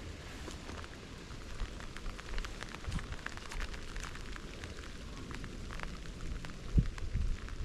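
Rain falling, with many separate drops ticking close by, and a few low thumps, the loudest near the end.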